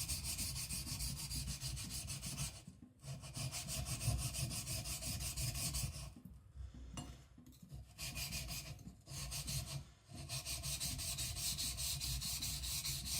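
Kiridashi blade ground in fast back-and-forth strokes on a wet 220-grit Shapton whetstone, a steady gritty rasping that stops briefly three times. The steel is being thinned on the coarse stone to grind away the secondary bevel.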